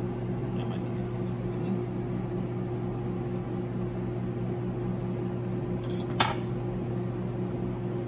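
Steady low mechanical hum of kitchen equipment, with one sharp click about six seconds in as the sashimi knife is set down on the plastic cutting board.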